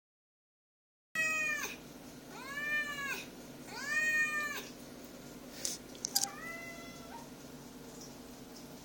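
Ragdoll cats meowing to be fed: three long meows that rise and fall in pitch, one after another, then a couple of sharp clicks and a shorter, flatter meow. A low steady hum runs underneath, and the sound only begins about a second in.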